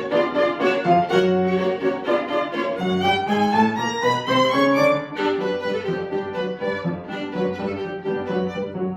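Violin playing a fast passage of quick, short notes, with a rising run of notes in the middle.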